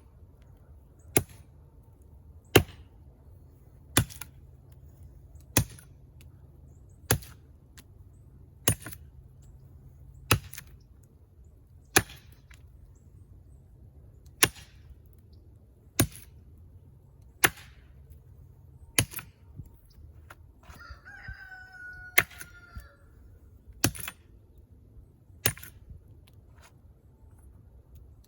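Brush knife chopping into a small tree trunk, one sharp blade strike about every one and a half seconds at a slow, steady pace. A single animal call sounds once about three-quarters of the way through.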